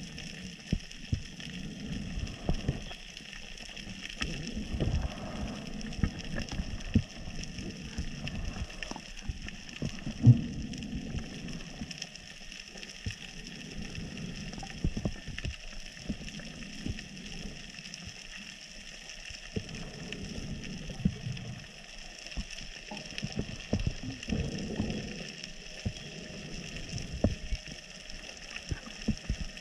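Underwater sound heard through a camera housing on a reef dive: a steady hiss with irregular clicks and low knocks. The sharpest knock comes about ten seconds in.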